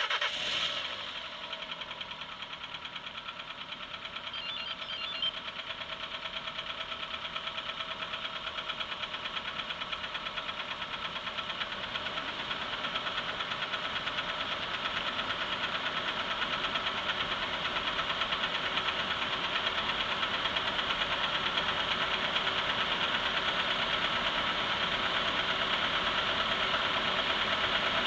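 Engine running with a steady, rhythmic knock from inside the engine. It grows gradually louder.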